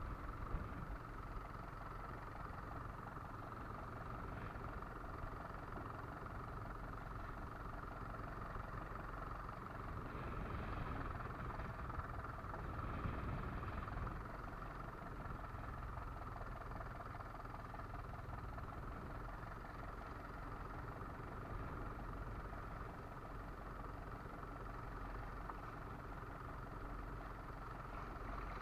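Fishing boat's engine running steadily, a continuous drone that swells a little about a third of the way through.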